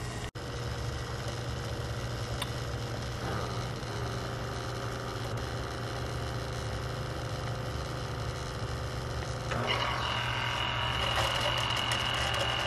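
Single-serve pod coffee maker brewing into a glass, its pump humming steadily as the drink streams in. About ten seconds in it grows louder, with a high whine and hiss.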